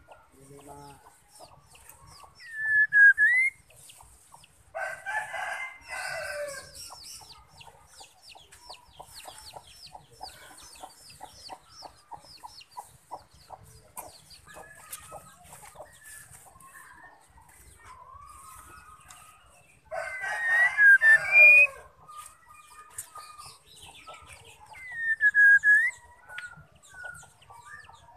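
Female white-rumped shama calling: short swooping whistles about 3 s in and again near the end, with a long run of rapid ticking calls between. A rooster crows twice, about 5 s in and about 20 s in; these are the loudest sounds.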